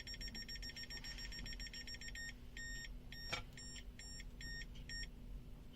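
IVRZLIANG ZL8231L multimeter's buzzer beeping in non-contact voltage (NCV) detection mode, the sign that it is sensing a live AC field. It beeps rapidly, about eight times a second, for roughly two seconds, then slows to single beeps about every half second as the detected field gets weaker. There is one sharp click in the middle.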